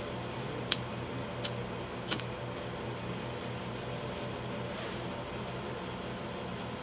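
Three sharp clicks, about two-thirds of a second apart, from a small butane torch lighter being sparked, over a steady low hum.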